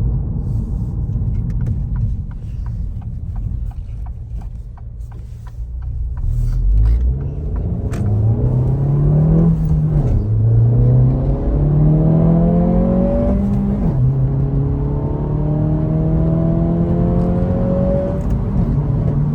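2024 Acura Integra's 1.5-litre turbocharged four-cylinder heard inside the cabin, first cruising with a low rumble and faint regular ticks. About eight seconds in it accelerates through the gears of its manual gearbox: the engine note climbs, drops at a shift about ten seconds in, climbs again, drops at another shift around fourteen seconds, then climbs slowly. Its new, stiffer PRL rear motor mount passes more engine noise and vibration into the cabin.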